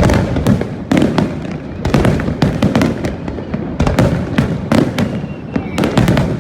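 Aerial fireworks going off in quick, irregular succession: a string of sharp bangs, about two a second, over a steady low rumble.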